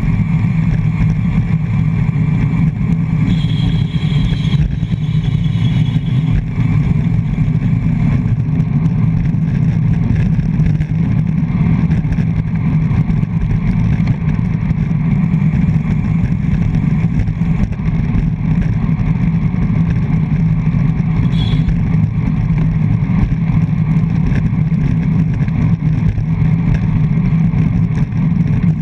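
Steady low wind rush buffeting a GoPro's microphone on a road bike's front mount, from riding at race speed in a pack.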